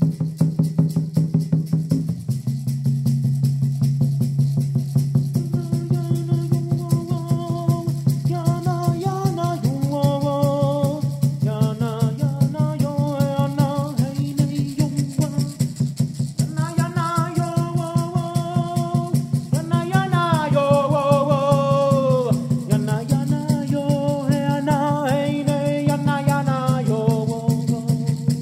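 Music: a peyote rattle shaken in a fast, steady rhythm over a low, steady drone, with a voice chanting a gliding melody from about six seconds in.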